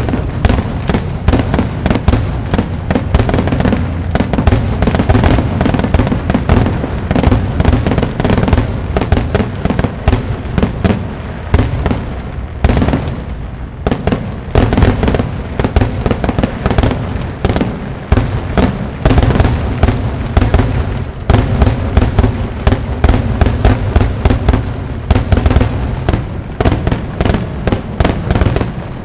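Aerial fireworks grand finale: a dense, rapid barrage of shell bursts and crackling reports, with a brief lull about halfway through.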